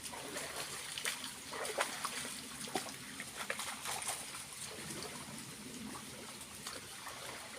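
Water of a small waterfall trickling and splashing steadily, with irregular small splashes throughout.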